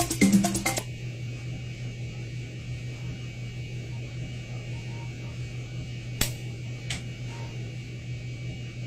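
Music cuts off about a second in, leaving a steady low electrical hum with faint hiss. Two sharp clicks come about six and seven seconds in.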